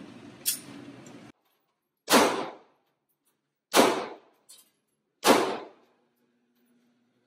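Three gunshots fired one after another about a second and a half apart in an indoor range lane, each a sharp crack with a short echoing tail. A fainter sharp crack comes about half a second in.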